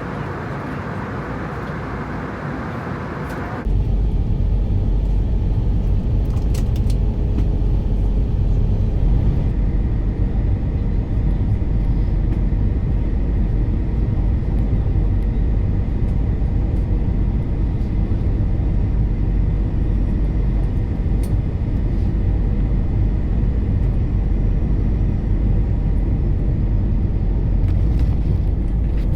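Airbus A320 cabin noise during the landing: a loud, steady deep rumble of engines and airflow, which takes over abruptly from a lighter hiss about three and a half seconds in.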